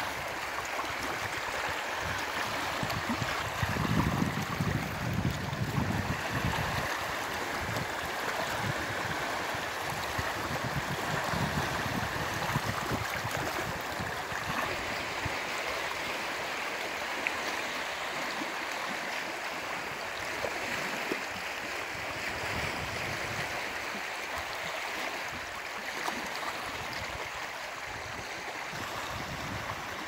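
Small sea waves washing steadily among boulders and onto a stony beach, with low wind rumble on the microphone at times in the first half.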